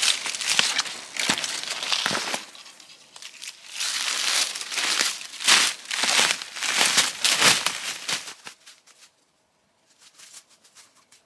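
Crinkling of plastic flagging tape being tied around a tree, then footsteps crunching through dry fallen leaves and brushing past twigs, about two steps a second, dying away after about eight seconds as the walker moves off.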